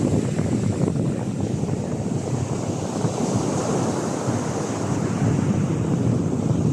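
Sea surf breaking and washing on a beach as a steady rush, with wind buffeting the microphone.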